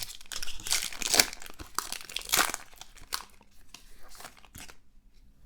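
Trading-card pack wrapper crinkling and tearing as it is ripped open, a run of rustling crackles that stops near the end.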